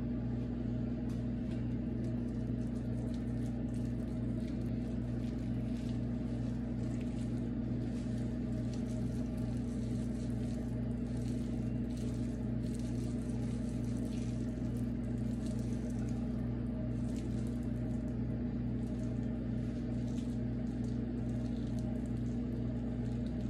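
Steady electrical hum of a running kitchen appliance, unchanging throughout, with faint scattered clicks over it.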